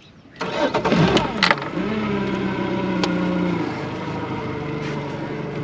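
Boat's outboard engine starting about half a second in, revving briefly, then settling into a steady idle.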